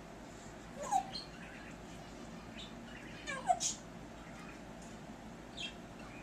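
African grey parrot imitating hiccups: two short, sharp "hic" sounds with a quick drop in pitch, about a second in and again about two and a half seconds later, and a fainter one near the end.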